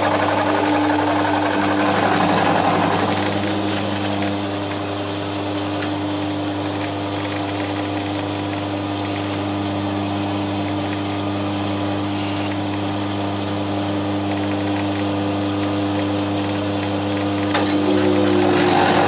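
Milling machine running steadily while machining the edge of a cast iron bandsaw table, a constant motor hum and whine with a couple of faint ticks.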